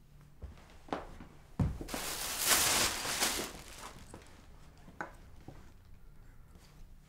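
A shot glass handled on a wooden table: a click and a low thump, then a loud rushing hiss for about two seconds, then two light knocks of the glass set down on the wood about five seconds in.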